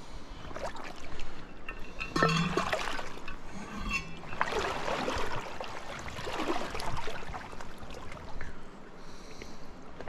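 Legs wading through a shallow river: water sloshing and splashing in uneven bursts with each step, over the steady run of the current.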